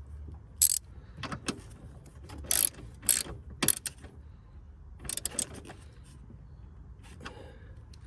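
Small hand ratchet clicking in short spurts as a nut is run down onto a bolt holding a bracket, with a pause between each group of clicks.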